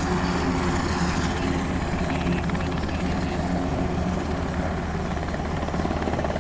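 Helicopter running steadily, its rotor beating rapidly over a constant low engine drone.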